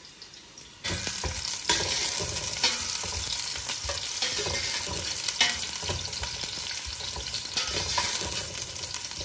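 Sliced onions sizzling in hot oil in a stainless steel pot, stirred with a metal spoon that scrapes and knocks against the pot. The sizzle starts suddenly about a second in. The onions are being lightly browned.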